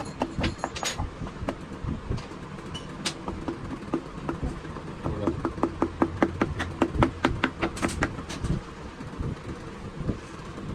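Hand tools knocking and clicking on metal engine parts: scattered sharp taps, then a quick run of about four or five a second for a few seconds, over a steady low hum.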